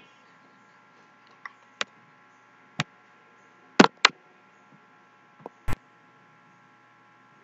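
Computer mouse clicking: about seven sharp clicks at uneven intervals, some in quick pairs, over a faint steady hum.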